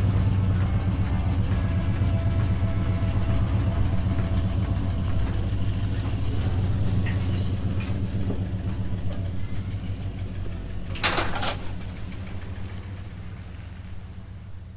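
A vehicle's engine running steadily as it tows a loaded trailer away, fading gradually over the second half. A short loud rattle comes about eleven seconds in.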